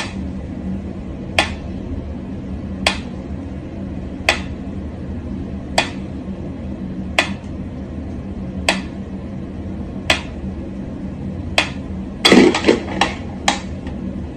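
Mechanical pendulum metronome ticking slowly and evenly, one sharp tick about every second and a half, over a steady low hum. Near the end a short burst of louder knocks and rustling breaks in.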